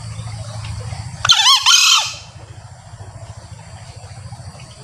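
A male green junglefowl gives a short, loud two-part crow about a second in, the wild cock's call.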